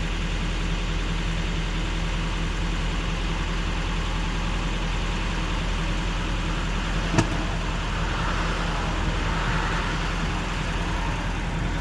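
Semi truck's diesel engine idling steadily with a low hum, with one sharp click about seven seconds in.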